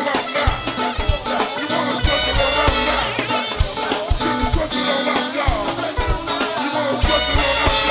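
Go-go funk band playing an instrumental passage: a steady, syncopated drum groove with bass, percussion and cymbal crashes.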